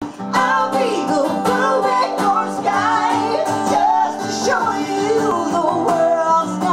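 Country song with a steadily strummed acoustic guitar and a singing voice.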